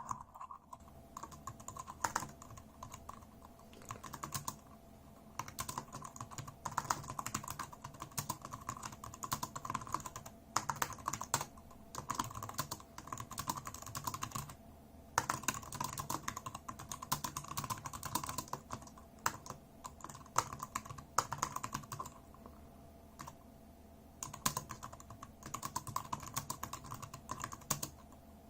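Typing on an Anker ultra-compact Bluetooth keyboard (A7726) with scissor-switch keys: fast runs of light key clicks, broken by a few brief pauses.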